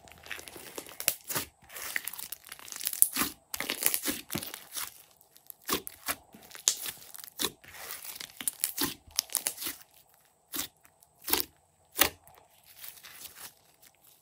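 Thick slime with clay mixed in, pressed, folded and stretched by hand: sticky crackling and tearing squelches as trapped air pockets pop. In the second half it thins out into a few separate sharper pops.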